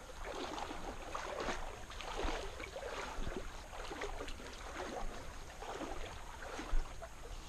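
Water splashing and sloshing in small irregular bursts, with one sharp knock about two-thirds of the way through.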